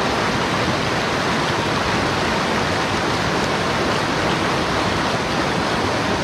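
Fast-flowing mountain stream water rushing steadily.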